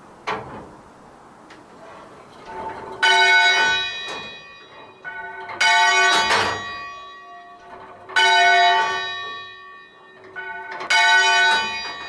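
A single church bell being rung full circle, struck four times about two and a half seconds apart, alternating handstroke and backstroke. Each stroke rings out with the same bright cluster of overtones, heard close up in the belfry, and a quieter noise builds just before each strike.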